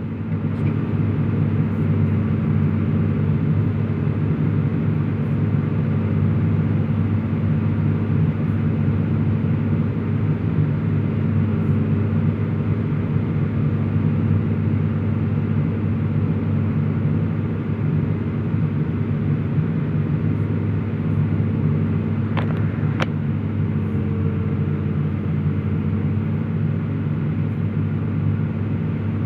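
Heavy diesel engine running at a steady speed, a low even drone throughout, with one brief sharp metallic tick about two-thirds of the way through.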